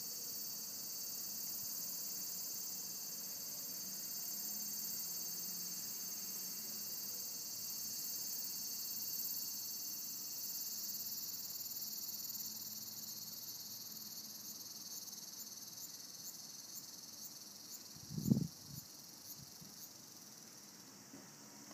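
Garden insects singing in a steady high-pitched chorus, with a run of regular chirps about twice a second in the second half. A single soft low thump about eighteen seconds in.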